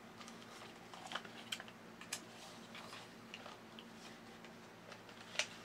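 Faint, scattered small clicks and light scrapes of a 1/8 inch metal rod being worked through the centre hole of a 3D-printed plastic leg, with the loudest click near the end.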